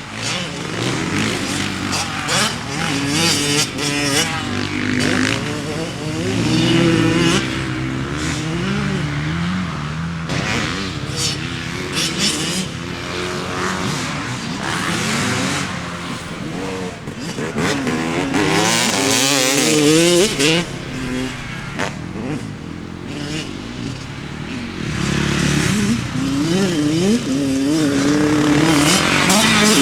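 Kawasaki KX 100 two-stroke dirt bike engine being ridden hard, its pitch climbing and dropping over and over as the rider works the throttle and gears, with bursts of wind hiss on the microphone.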